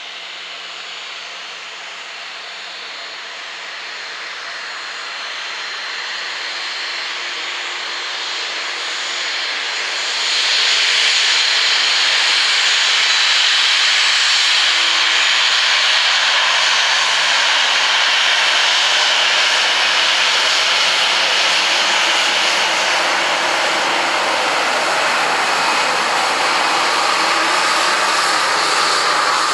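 Jet airliner's engines running: the rushing noise grows gradually louder, steps up sharply about a third of the way in, then holds loud and steady.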